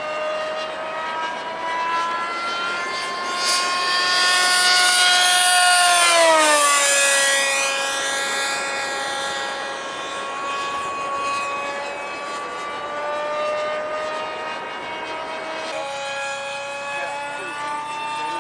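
Nitro ducted-fan RC jet, a K&B .81 glow engine driving a Dynamax fan, flying past at speed. Its high whine rises and grows louder, then drops sharply in pitch as it passes about six seconds in, and carries on steadier and a little quieter.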